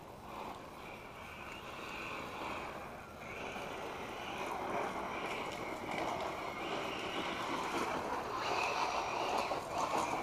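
1/8-scale electric RC car with a Castle Sidewinder 8th-scale ESC and 2200 kV brushless motor running on gravel: motor whine and tyres on loose gravel coming and going, loudest in the second half.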